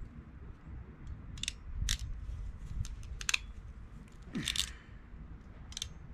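Hand crimping tool squeezing a closed-end cap onto two twisted wires: a series of short, sharp clicks and crunches, with a longer one about four and a half seconds in.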